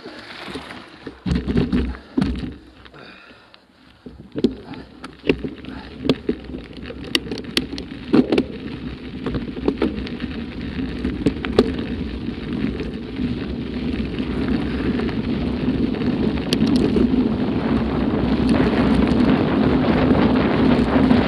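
Bicycle tyres rolling over a loose gravel track, a steady crunching with scattered sharp clicks and rattles from stones and the bike. It grows steadily louder as the bike picks up speed.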